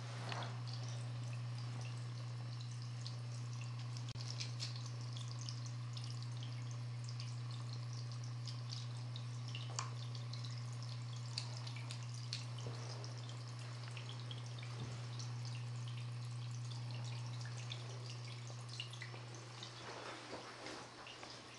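Water dripping and trickling in small clay channels: scattered faint drips over a steady low hum, which fades near the end.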